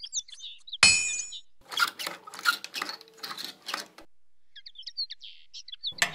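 Small metal toy bucket clinking as it is hung on the spout of a miniature hand pump about a second in, with a brief ring, followed by a couple of seconds of light knocking and rattling. Birds chirp at the start and again from about four seconds in.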